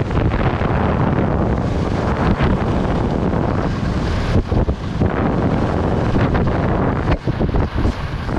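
Wind rushing over the microphone of a camera moving fast down a ski slope, a loud, steady buffeting that eases briefly twice, about halfway through and near the end.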